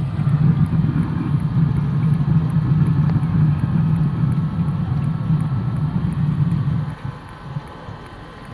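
Webasto Thermo Top V diesel water heater running: a steady low rumble from its combustion fan and burner, which drops away sharply about seven seconds in.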